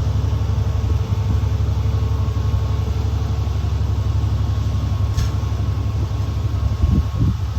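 School bus running along the road, heard from inside: a steady low engine and road rumble, with a sharp click about five seconds in and a couple of bumps near the end.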